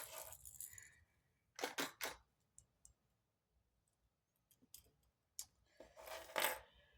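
Small plastic clicks and rattles of fishing lures and a small plastic tackle box being handled, in three short bursts: at the start, about two seconds in, and a longer one near the end.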